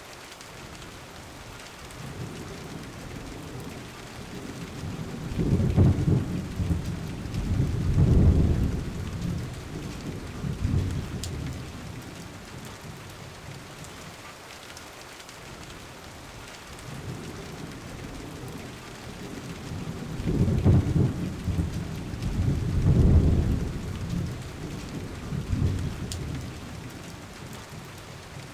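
Steady rain with two rolls of thunder, each a long low rumble that swells several times, one starting about five seconds in and one about twenty seconds in.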